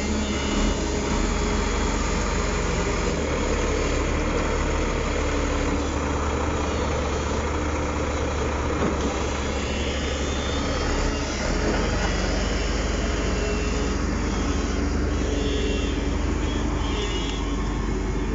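Diesel engines of a crawler bulldozer and a Zoomlion tracked excavator running steadily as the machines push against a large uprooted tree stump.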